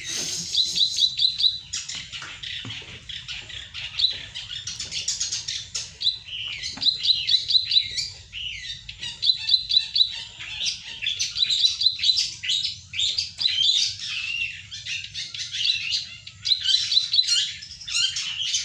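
A ciwah songbird singing continuously in full voice: high chattering phrases broken by quick runs of rapid, evenly repeated notes, every few seconds.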